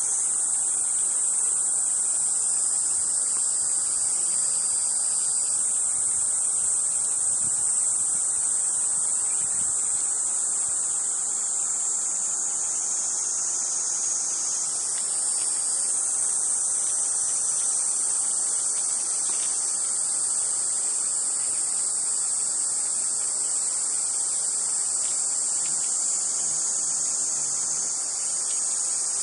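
Cicadas singing in a steady high-pitched chorus, the pitch stepping slightly a few times.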